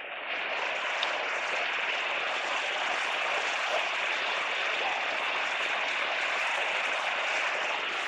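Waterfall rushing steadily over rock ledges, an even hiss of falling water.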